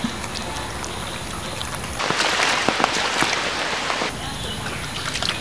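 Watery patter with scattered small drips and splashes, turning into a denser, louder spattering hiss for about two seconds in the middle.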